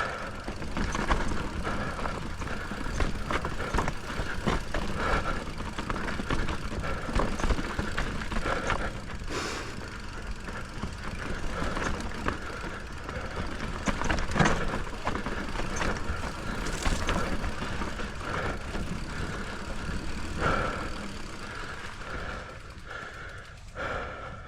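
Mountain bike running down a rough dirt trail: a steady clatter of tyres and frame over rocks and ruts, broken by frequent sharp knocks from the bumps.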